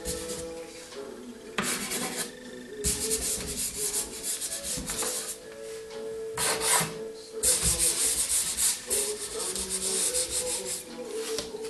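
Hand rubbing dry pastel into paper, skin dragging over the chalky surface in several long scratchy strokes with short pauses between them, over faint background music.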